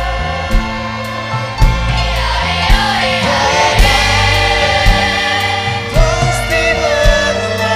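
Children's choir singing with an orchestra, French horn and strings among it, over a steady beat struck about once a second.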